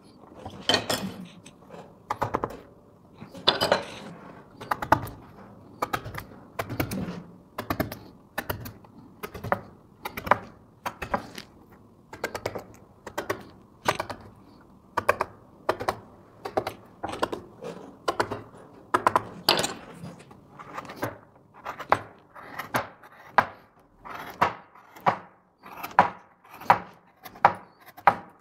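Hand-pushed wood-carving gouge cutting into a wooden bead molding: a long run of short, crisp cuts, each with a small snap as the chip breaks free, about one to two a second.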